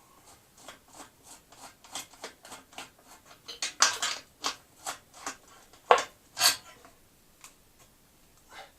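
Metal hand tools clicking, scraping and clinking against motorcycle engine parts in an irregular run of short sounds, with a few louder knocks near the middle.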